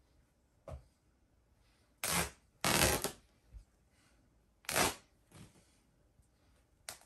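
Plush fabric and fibre stuffing of a large stuffed toy rustling in short bursts as the stuffing is pulled out and the fabric skin lifted and shaken. There are about five bursts, the loudest around two to three seconds in.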